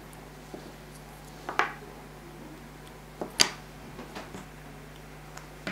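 Small hobby tools and a plastic model-kit part being handled and set down on a cutting mat: a few sharp clicks and taps, the two loudest about one and a half and three and a half seconds in.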